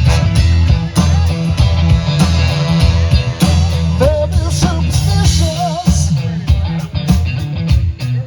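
Live band playing a funk-rock cover with drums, bass and guitar; a lead vocal with vibrato comes in about four seconds in.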